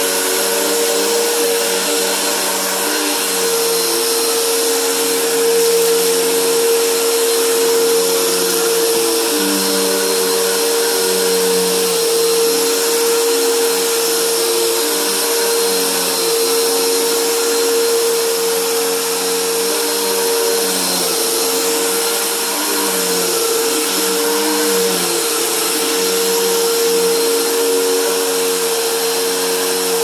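Upright vacuum cleaner running continuously while it is pushed back and forth over carpet. It makes a steady whine with a rushing of air, and its lower hum shifts up and down in pitch with the strokes.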